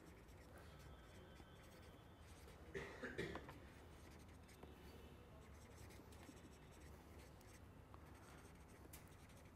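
Faint scratching of a marker pen writing on paper, louder for a moment about three seconds in.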